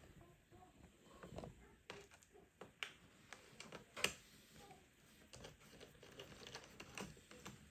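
Faint, scattered clicks and taps of a PH1 Phillips screwdriver and hands working the screws and plastic of a Dell Latitude D610 laptop during keyboard removal, with one sharper click about four seconds in.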